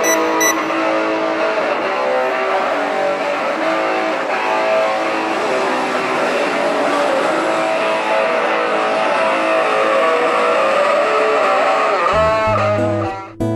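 Guitar-based music with a dense strummed texture, changing to a different passage with a strong low bass note about 12 seconds in.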